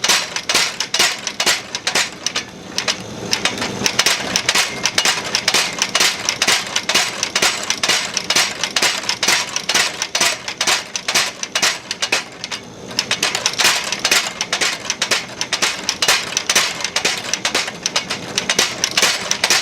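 Hand hammer striking a hot steel bar on the anvil, drawing out a taper, in quick runs of about three or four blows a second with two short pauses.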